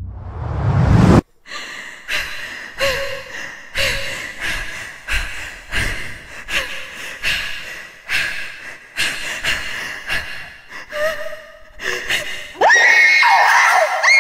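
A person gasping for breath, hard panting breaths repeating about one and a half times a second. It opens with a swelling rise that cuts off suddenly about a second in. Near the end a loud high sound glides up in pitch and holds.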